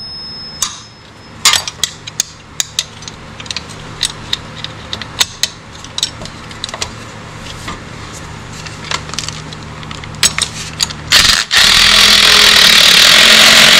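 Scattered metal clicks and knocks of tools and parts around a mower's PTO clutch, over a low steady hum. About eleven seconds in, a cordless impact driver starts and runs loudly and continuously on a bolt of the electric PTO clutch's mounting bracket.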